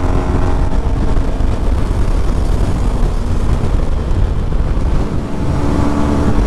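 Motorcycle engine running at a steady cruise, with wind rushing over the rider's microphone.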